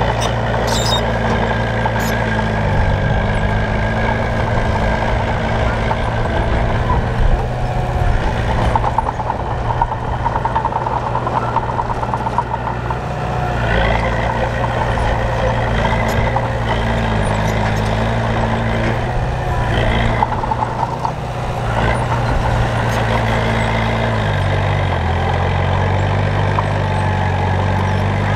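Heavy diesel engine of road-building machinery running steadily under work, its pitch shifting down about two seconds in and again near the end. A few short high-pitched tones come in the middle.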